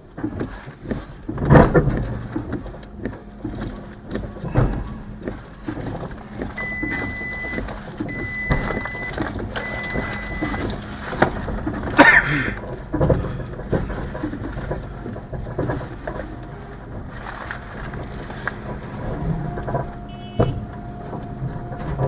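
Car cabin noise picked up by a dash cam as the car moves slowly: engine and road rumble with scattered knocks, the loudest about a second and a half in and about twelve seconds in. Partway through, three electronic beeps sound, each just under a second long.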